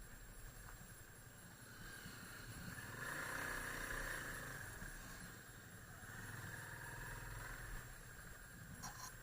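Faint motorcycle engine running, swelling about three seconds in and fading, then rising again more softly.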